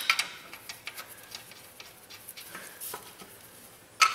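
Scattered small clicks and clinks of metal parts and tools being handled during under-car work, with a sharper click at the start and a few more near the end.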